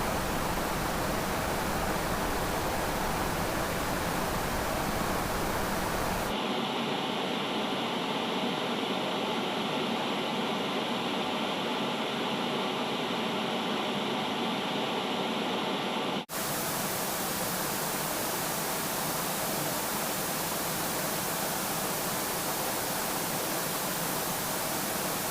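Television no-signal static: a steady hiss of snow noise. About six seconds in it changes to a thinner hiss with a brighter upper band. At about sixteen seconds it breaks off for an instant and comes back as the full hiss.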